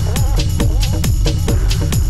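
Background music with a steady beat: evenly spaced drum hits over a bass line and a wavering melody.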